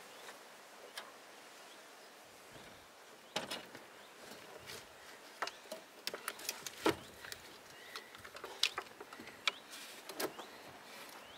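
Irregular clicks and light knocks of hands and small tools working on the wiring in a car's engine bay, with the engine not running. They start about three seconds in and come more often in the second half.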